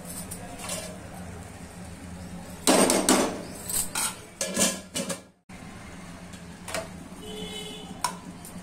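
Steel spoon and utensils scraping and clanking against a kadai of thick prawn curry, with a burst of loud clatter near the middle. The sound cuts off abruptly a little past halfway, leaving only faint handling sounds.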